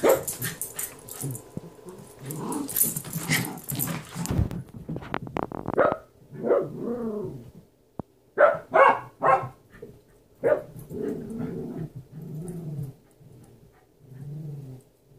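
Two small dogs, a long-haired dachshund and a merle-coated dog, playing rough over a toy. There is scuffling in the first few seconds, then growls and a quick run of about four barks about eight seconds in, with more low growling after.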